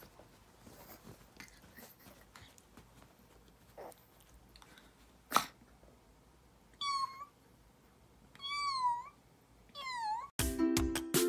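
Yorkshire terrier whining: a short, sharp rising yelp about five seconds in, then three high-pitched, wavering whines in the second half. Music with chiming tones starts near the end.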